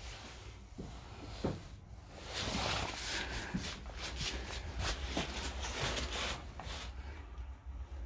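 Rustling, scuffing and footsteps of someone moving while handling a phone, from about two seconds in until near the end, over a low steady hum.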